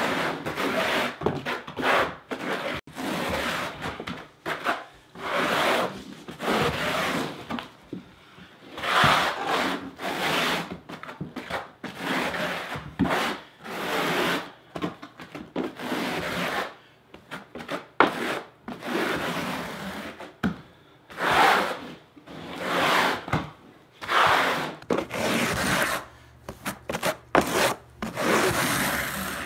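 Steel notched trowel scraping and combing thin-set mortar across a plywood subfloor in repeated sweeping strokes, about one a second.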